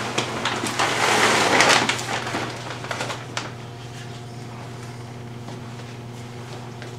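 Handling noise from the camera being moved and set down: rustling and a few knocks and clicks, the last about three seconds in. After that a steady low hum carries on alone.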